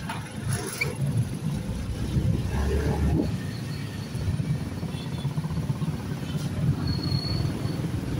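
Steady low rumble of a small motor vehicle riding along a street, with wind buffeting the microphone. A brief thin high tone sounds about seven seconds in.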